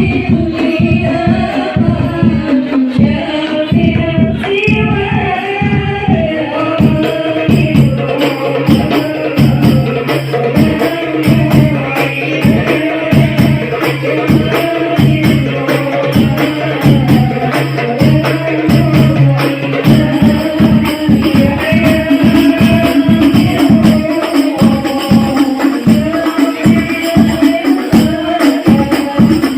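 Hadroh ensemble: rebana frame drums beaten in a fast, steady rhythm with a group of voices singing a devotional song over them, played loud through a sound system.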